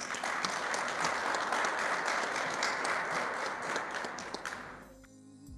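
Applause after an acceptance speech, a dense patter of many hands clapping that fades out about five seconds in, with soft music beginning just at the end.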